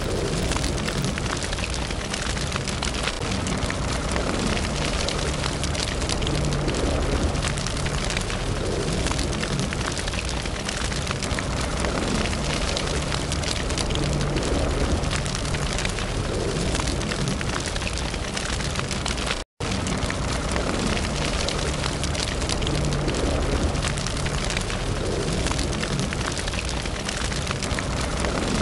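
Wood fire burning, with dense, continuous crackling over a steady low rumble. The sound cuts out for an instant about two-thirds of the way through.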